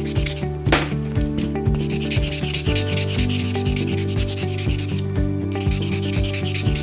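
Hand nail file rubbing back and forth over an acrylic thumbnail in quick, even strokes. The fine-grit side is smoothing the new acrylic. Background music with held notes plays underneath.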